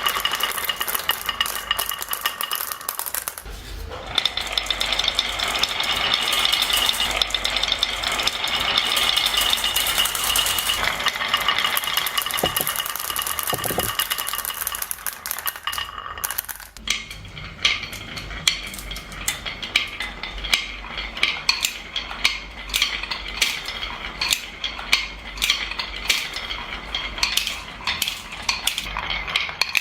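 Marbles rolling and clattering down a marble run track in a dense, continuous rattle. About sixteen seconds in the rattle stops suddenly and gives way to separate clacks, roughly one to two a second, as single marbles knock along the track.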